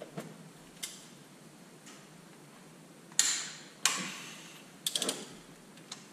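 Sharp metallic clicks and clanks of a torque wrench and socket on the cylinder head bolts, coming at irregular intervals. The two loudest ring briefly, a little past the middle, and a quick run of clicks follows about five seconds in.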